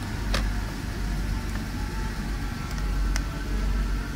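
BMW 256S5 (M54B25) 2.5-litre inline-six idling steadily, heard from inside the car's cabin as a deep, even hum. Two light clicks sound over it, about half a second in and about three seconds in.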